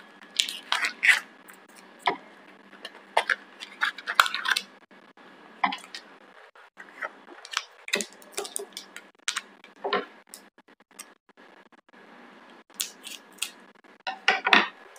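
Packaging of an M-seal epoxy putty pack being handled: the small cardboard box opened and the putty's wrapper peeled off, in scattered short rustles and clicks. Scissors are handled near the end.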